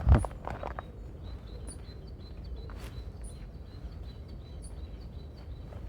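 Small songbirds calling: a thin, high note repeated about three times a second, with a few higher chirps now and then. A few footsteps in the first second.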